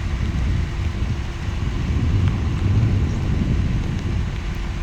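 Wind buffeting the microphone outdoors, a steady low rumble that swells about two to three seconds in.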